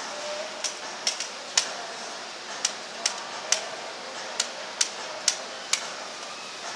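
A series of sharp clicks or taps, about two a second and somewhat irregular, over a steady background hum.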